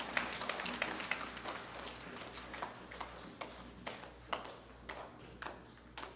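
Audience applause that tapers off, thinning to scattered single claps toward the end.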